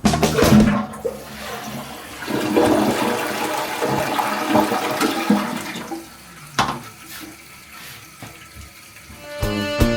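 Toilet flushing: water rushes and swirls down the bowl for several seconds, then tapers off. A single sharp knock follows, and music with a beat comes back in near the end.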